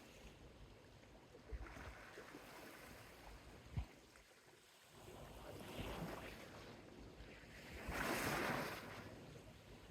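Small Mediterranean sea waves lapping gently on a beach, faint and hissing, with a louder wash of a breaking wave about eight seconds in. A couple of soft low thumps come earlier.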